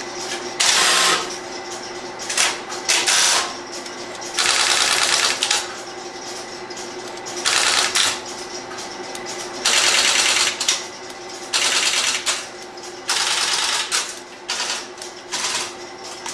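Stromberg-Carlson XY telephone switches stepping, in about eight bursts of rapid mechanical clicking a second or two apart, as the selectors follow dialed digits across their wire banks. A faint steady hum runs underneath.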